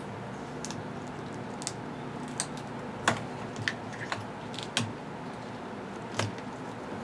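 Light, irregular clicks and rubbing of hands working an old rubber motorcycle handgrip, cutting it along a scored line and peeling it off the handlebar, over a steady low hum.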